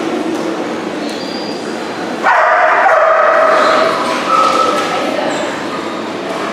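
A dog yelping and whining excitedly: a loud drawn-out cry starts about two seconds in, then a shorter one follows, over steady background noise.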